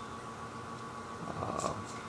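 Steady low room hum with a few faint steady tones. A soft rustle of handling, with a couple of faint ticks, comes in the second half.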